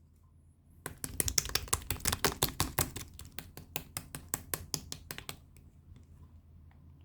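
Soft white slime being pressed and poked by hand, giving a quick run of sharp, wet clicks and pops, about five or six a second. It starts about a second in and dies away to a few faint ticks after about five seconds.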